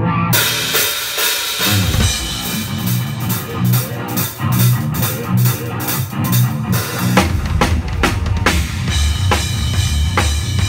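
A PDP drum kit with two bass drums played hard: snare and tom strokes and cymbal crashes over a steady kick beat. From about seven seconds in, the two bass drums play a fast, nearly continuous run.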